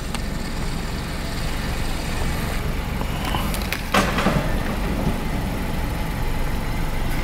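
Vehicle engine running steadily with a low rumble, heard from inside the vehicle, with one sharp knock about four seconds in.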